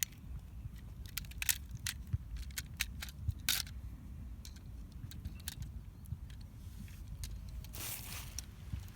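Scattered sharp clicks of small hard objects being handled, with a short rush of noise about eight seconds in, over a steady low rumble of wind on the microphone.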